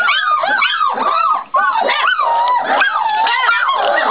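A litter of Great Pyrenees puppies about four and a half weeks old whining and yipping over one another in a dense, unbroken chorus of high cries that rise and fall. These are the eager cries of puppies crowding a bowl of food at feeding time.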